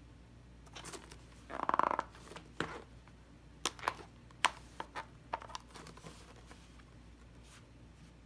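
Slime being squeezed and poked by hand: a short squish about a second and a half in, then a string of sharp sticky pops and clicks.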